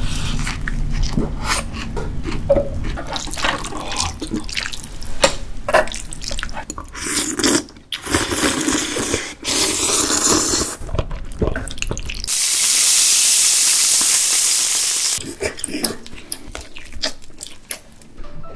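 Close-miked eating sounds: wet chewing, biting and slurping with many sharp smacks and clicks. About twelve seconds in, a steady hiss lasts about three seconds.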